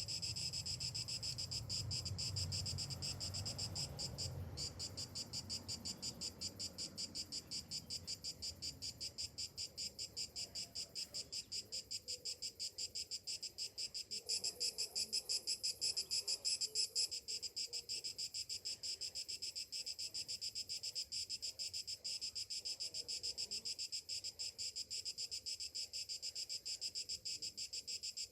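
Cicadas singing: a steady high-pitched song pulsing evenly at about four beats a second, growing louder for a few seconds in the middle.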